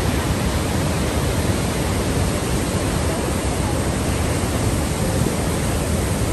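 Niagara Falls' water pouring down onto the rocks at its base: a steady, unbroken rush of falling water and spray.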